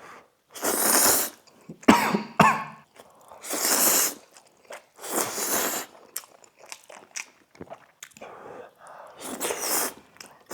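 Someone slurping instant noodles coated in a thick braising sauce: several long, hissy slurps of about a second each, with quieter chewing between them.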